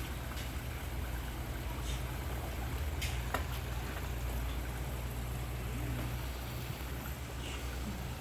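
A steady low rumble, with a few faint clicks and some short faint sounds that rise and fall in pitch.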